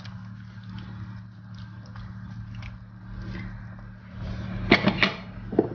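A wooden spatula stirring cabbage borscht in a stainless steel pot, faint scrapes and clicks over a steady low hum. Near the end come a few sharp knocks, then one more.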